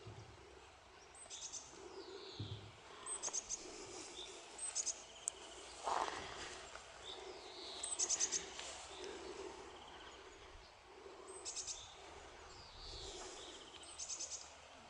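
Birds singing outdoors: a songbird repeats a short, rapid, high trill every few seconds, with other brief chirps in between.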